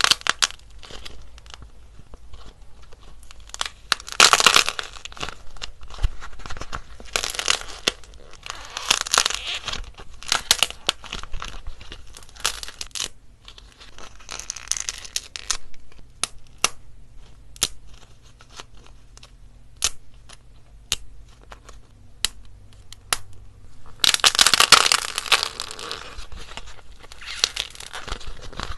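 Dried clay being pressed and broken by hand, crackling and tearing. Dense spells of crackling come in bursts, with separate single cracks in the quieter stretch past the middle.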